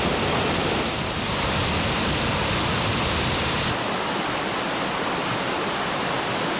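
Waterfall, water pouring over a rock ledge in a steady rush. A little under four seconds in the sound shifts abruptly, losing much of its higher hiss.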